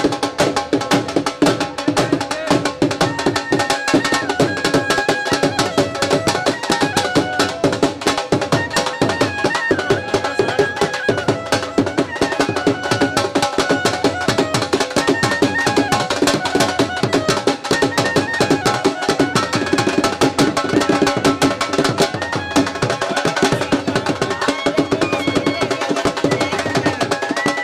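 Punjabi dhol drumming in a fast, steady rhythm, with a wavering high melody running over the beat.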